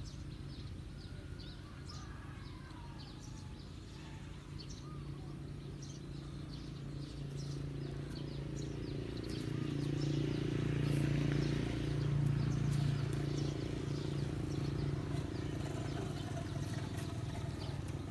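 Small birds chirping over a steady low drone that swells through the middle and eases a little toward the end.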